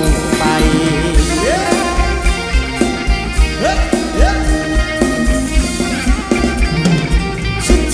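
Thai ramwong dance music played by a live band: a drum kit keeps a steady beat under the instruments, with a few notes sliding upward in pitch.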